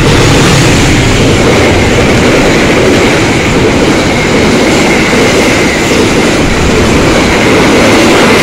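A CC206 diesel-electric locomotive and its passenger carriages pass close at speed. The locomotive goes by at the start, then comes a loud, steady rush of steel wheels on the rails, with a faint high whine running through it.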